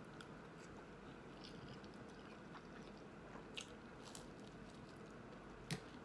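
Faint close-up chewing with a few short mouth clicks, the loudest near the end, over a low steady hum.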